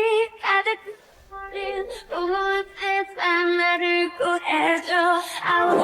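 A high female voice singing a song, with held notes broken by short pauses and a brief lull about a second in.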